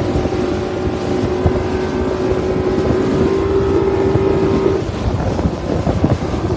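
Motorboat engine running at sea, with a steady whine that stops a little under five seconds in, and wind buffeting the microphone.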